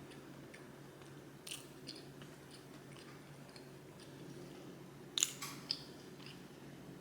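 A person chewing and biting food close to the microphone, with wet mouth clicks and a brief cluster of louder crunchy bites about five seconds in.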